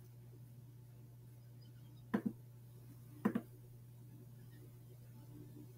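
Two computer mouse clicks about a second apart, each a quick double tick, over a steady low electrical hum.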